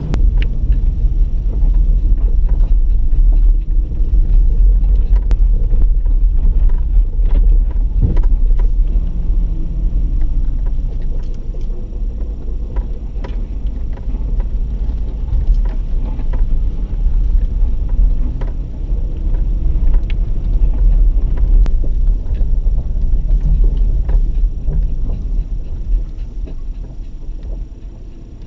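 Suzuki Grand Vitara SUV driving slowly along a rough dirt trail: a loud, low rumble of engine and tyres with frequent knocks and rattles from the bumps, fading away near the end.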